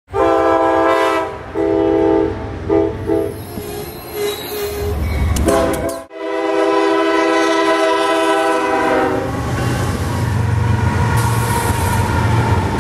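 Locomotive air horns sounding a chord in several blasts, two long and then shorter ones, cut off abruptly about halfway through. Then comes one long horn blast, which gives way to the low rumble of a locomotive passing close by.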